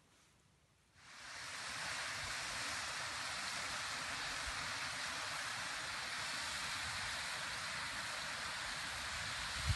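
Mountain stream rushing over small rocky waterfalls: a steady hiss of falling water that starts suddenly about a second in. A brief low thump near the end.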